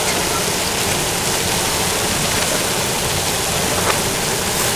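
Steady hiss of chicken steaks sizzling on cast-iron hot plates together with the rush of gas wok burners, with a few faint pops near the end, all played in reverse.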